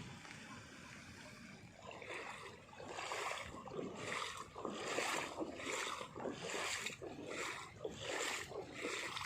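Floodwater splashing in a steady rhythm, about one and a half splashes a second, starting about two seconds in over the hiss of heavy rain.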